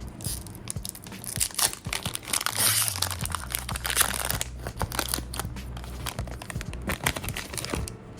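A Disney Lorcana booster pack wrapper being torn open and crinkled by hand. It makes many short crackles, with a longer tearing rustle about three seconds in.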